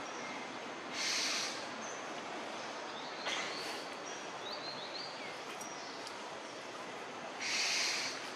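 Two short rustles of leaves and twigs, about a second in and near the end, as macaques pull at and climb through leafy branches, over a steady outdoor hiss. A few faint bird chirps come in the middle.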